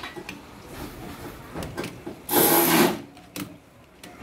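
Socket ratchet on a long extension clicking in short runs as an engine-mount bolt is turned, with a louder half-second burst about two and a half seconds in.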